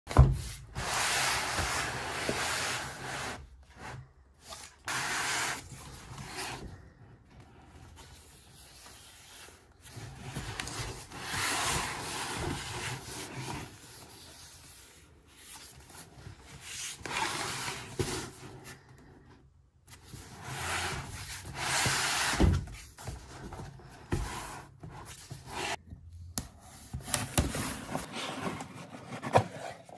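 Box and packaging rubbing and scraping in irregular bursts a few seconds long as a pistol safe is unboxed, with a few sharp knocks.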